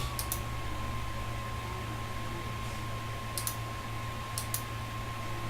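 Faint small clicks in three quick pairs, camera buttons being pressed while the zoom is adjusted, over a low steady hum and a thin steady whine.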